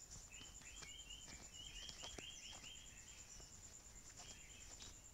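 Faint background ambience: a steady, rapidly pulsing high insect trill runs throughout, and a quick run of short chirps comes in the first half.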